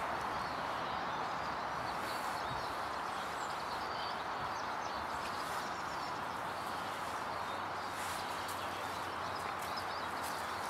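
Steady outdoor hiss in a spring forest, with faint bird chirps now and then.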